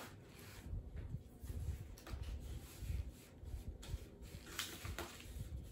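Stack of newsprint sheets rubbing and sliding on a hardboard drawing board as hands push them under the metal clips and straighten them, with a few soft knocks.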